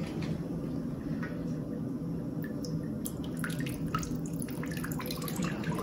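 Water running and splashing from the spigot of a glass water dispenser jar into a container, growing fuller about halfway through, over a steady low hum.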